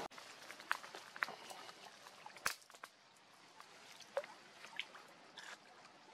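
Faint scattered splashes and drips as a long-tailed macaque wades through shallow muddy water and paws in it with its hands, with one sharper click about two and a half seconds in.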